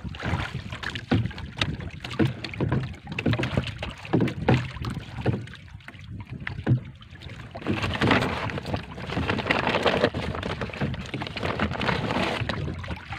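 Sea water slapping and lapping against the hull of a small outrigger boat in irregular knocks and splashes, with wind on the microphone. About halfway through it becomes a steadier wash of water noise.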